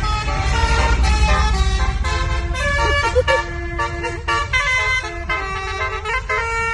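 Basuri telolet bus horn, a multi-tone horn, playing a quick melody of stepped notes over a steady low rumble.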